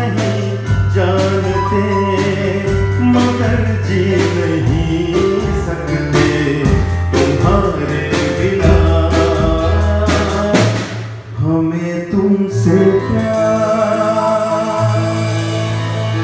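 Small live band playing a song: a man singing into a microphone over electronic keyboard and an acoustic drum kit with cymbals. The drums beat steadily for about ten seconds, drop out briefly, hit once more, and the last few seconds are held keyboard notes and voice.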